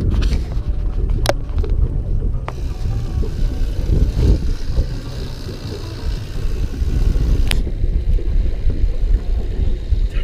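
Motorboat under way at cruising speed: a steady low engine-and-hull drone with wind buffeting the microphone, and a few sharp knocks.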